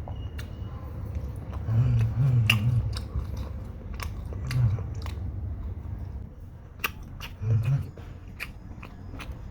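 A person biting and chewing crispy fried chicken backs, with scattered sharp crunches and a few short low hums.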